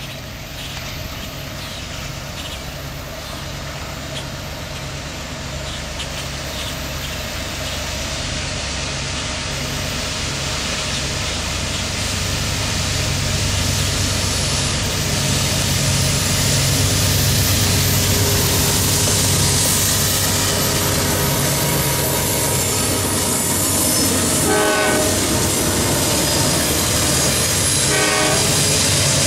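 CSX freight train with several diesel locomotives approaching and passing, the engine rumble growing steadily louder as it nears. Two short horn blasts near the end.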